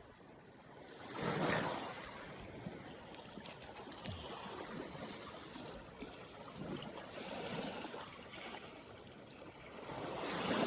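Lake Superior waves washing onto the beach, rising and falling in surges, the strongest about a second and a half in and again near the end.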